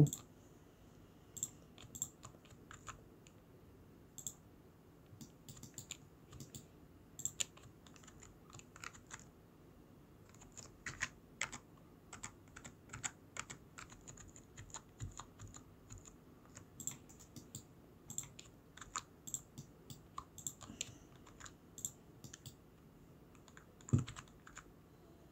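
Computer keyboard keys and mouse buttons clicking irregularly and faintly, with one louder knock near the end.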